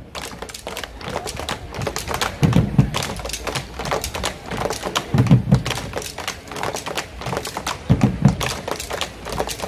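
Malambo drumming on bombo legüero drums struck with sticks: a rapid run of sharp clicking stick strokes, with deep drum beats coming in short clusters about every two and a half seconds.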